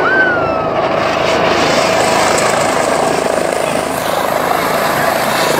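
Helicopter hovering low overhead: steady rotor chop and turbine noise. A voice calls out briefly near the start.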